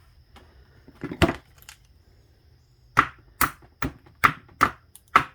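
Tools and parts being picked up and set down on a workbench: a knock about a second in, then a run of six sharp knocks, about two a second, near the end.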